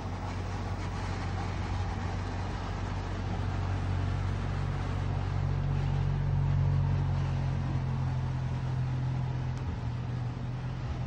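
Steady low hum of a portable air conditioner running.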